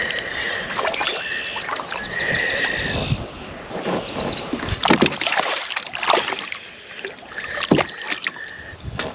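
Water sloshing around a fishing kayak, with several sharp knocks and splashes and a rapid run of clicks about three seconds in.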